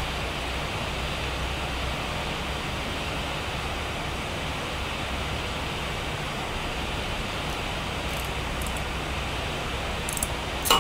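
Steady, even background noise with a low hum, like machinery or ventilation running. It ends with two short sharp clicks, the second the loudest.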